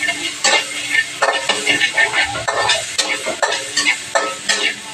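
Garlic, onion and tomato sautéing in oil in a wok over a gas burner: an irregular sizzle with crackles and pops several times a second.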